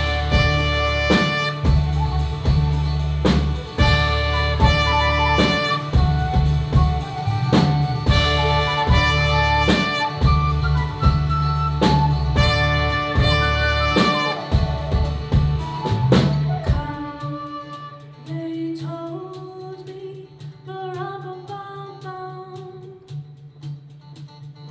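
Live band playing an upbeat, jazzy holiday number with drum kit, saxophone and brass. About sixteen seconds in the full band drops away suddenly, leaving a quieter passage with a bass line and a single melodic line.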